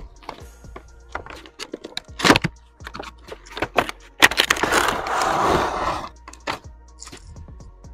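Cardboard and plastic packaging being handled: scattered crackles and taps, a sharp crack about two seconds in, then a second or two of scraping as the plastic tray slides out of the cardboard box.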